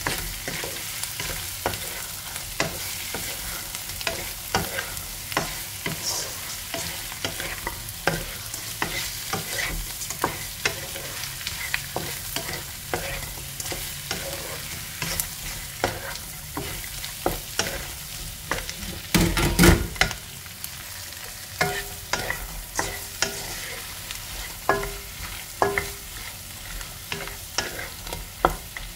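Whole shell-on shrimp and chopped onion sizzling in a nonstick pan while a wooden spatula stirs and turns them, with frequent knocks and scrapes of the spatula against the pan. About two-thirds of the way through comes a louder burst of clatter.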